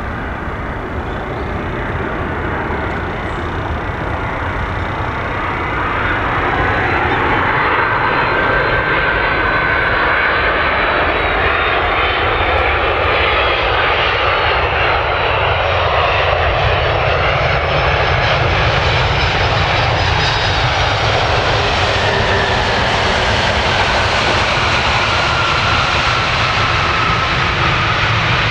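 Boeing 767-300 airliner landing: its jet engines grow louder over the first few seconds as it approaches, then run steadily loud through touchdown and the landing roll. A whine slides down in pitch over the last several seconds.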